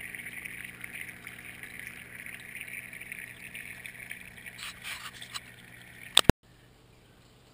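Small pump-fed paludarium stream trickling steadily, with a few light clicks. A loud double click comes about six seconds in, and then the sound cuts off abruptly to near silence.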